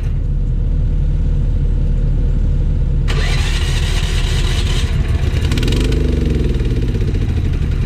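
Engine of heavy equipment running steadily, with a loud hiss starting about three seconds in and lasting under two seconds, followed by a rattle.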